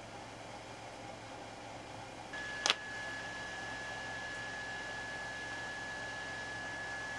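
Steady background hiss with a low hum. A little over two seconds in, a steady high-pitched whine starts and holds, and a single sharp click sounds just after it.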